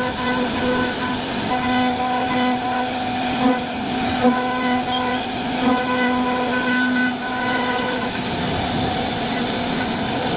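CNC wood-carving router spindle running, a steady whine over cutting noise that swells and fades as it works the wood, with a few brief louder knocks near the middle.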